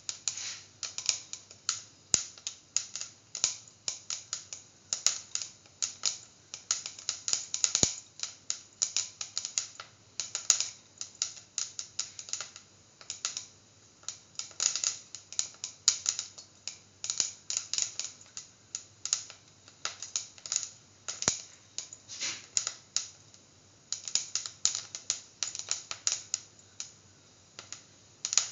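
Mustard seeds popping in hot oil in a stainless steel pan as they temper, with fenugreek seeds frying among them: a steady run of sharp, irregular crackles and ticks that eases briefly about three-quarters of the way through.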